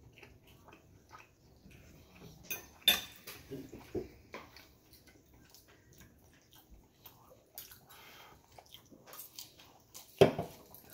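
Knife and fork clicking and scraping against a plate while forking through iceberg lettuce salad, in scattered short clinks. A little after ten seconds a louder, short crunch as a mouthful of lettuce is bitten.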